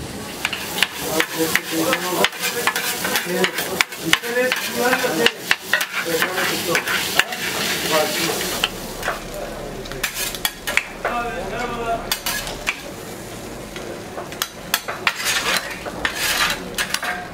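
Food frying on a hot griddle, with a metal spatula scraping and clattering on it in quick, irregular strokes.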